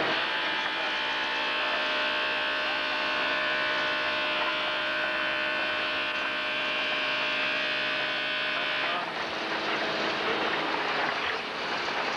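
Horizontal concrete mixer running: a steady mechanical hum with a whine, which drops away about nine seconds in, leaving a rougher rushing noise.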